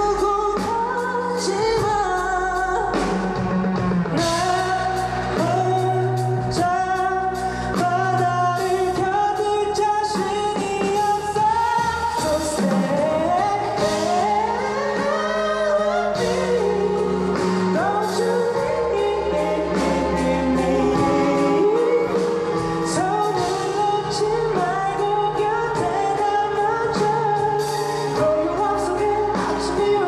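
A pop-rock band song with lead singing over bass guitar, drum kit and keyboard.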